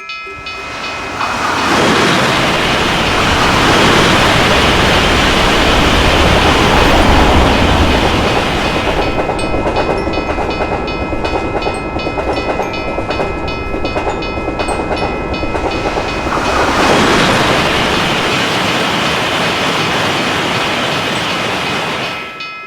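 Train passing over a level crossing, its wheels and rails making a loud rushing rumble that swells twice, while the railroad crossing bell keeps ringing in a steady repeating ding. The bell shows through most clearly in the middle and near the end as the rush eases.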